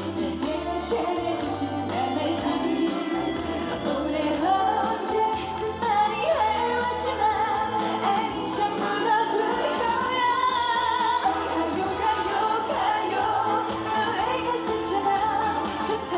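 Live trot music: a woman singing over a full band backing, amplified through the stage sound system.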